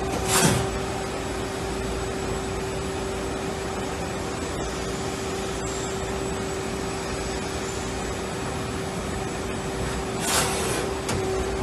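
L.K. Machinery LT-8 CNC lathe running a turning job: a steady whine over an even hiss, with brief louder bursts about half a second in and again near the end.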